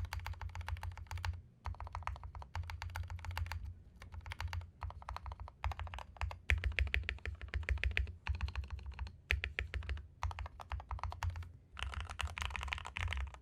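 Typing on a Royal Kludge G68 Plus mechanical keyboard with lubed Gateron Milky Yellow linear switches, foam-modded case and low-profile keycaps: a muted, deep 'thocc' keystroke sound. The keystrokes come in quick bursts with short pauses between them.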